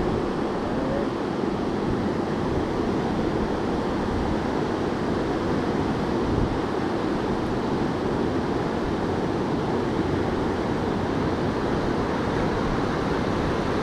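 Steady rush of river water running through riffles and small rapids, with no separate splashes or strokes.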